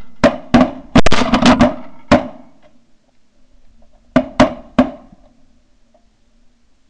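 Shotgun volley at flying snow geese: a rapid string of blasts from several guns in the first two seconds, then three more shots about four seconds in.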